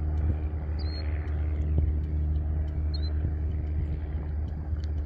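Steady low mechanical rumble with a faint steady hum, like an engine or machinery running, and two brief faint high chirps about one and three seconds in.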